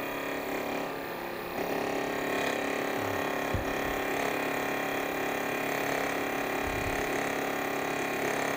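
End mill in a homemade milling head, driven straight off an electric motor's shaft, cutting brass as the work is fed across. A steady motor whine with the cutting noise over it, getting louder about a second and a half in.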